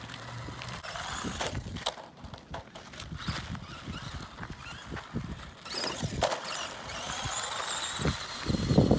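HS Storm 1/18-scale electric RC monster truck running over loose gravel on pavement: irregular crunching and ticking of its tyres on the grit, with a faint high motor whine rising and falling near the end.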